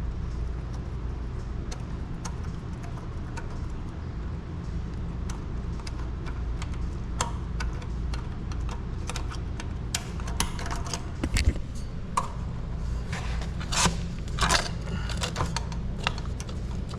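Small metal clicks and clinks from a pipe clamp being worked off the milk pump's outlet pipe during disassembly, coming more often in the second half. Under them runs a steady low machinery hum.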